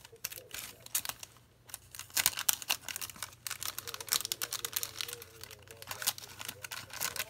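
Clear plastic packaging crinkling as it is handled and pulled open: a run of irregular sharp crackles, with a short lull about a second in.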